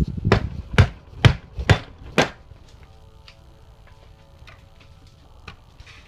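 Five sharp knocks about half a second apart: a hard drive magnet bracket clamped in a bench vise is struck with the end of a wooden board to break the magnet loose from its steel plate. A few faint clicks follow.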